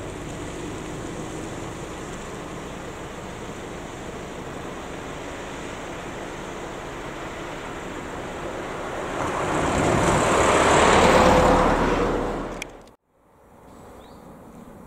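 Cars driving past on a road: steady traffic noise, then a car approaches, gets loud as it passes about ten to twelve seconds in, and the sound cuts off abruptly.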